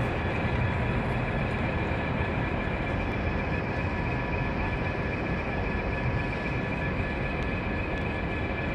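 Diesel locomotive running steadily: a low engine rumble with a faint steady high whine over it.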